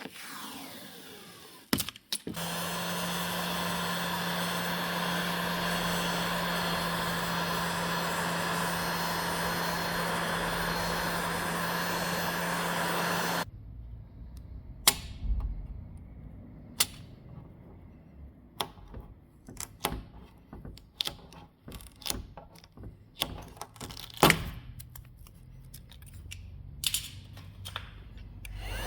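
A power tool runs steadily for about ten seconds with a constant hum and hiss, then stops suddenly. After that come scattered clicks, taps and knocks of tools being handled.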